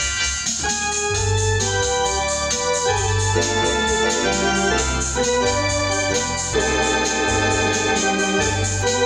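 Hammond home console organ played with both hands: sustained chords over a bass line that moves to a new note about once a second. Some notes waver with vibrato in the second half.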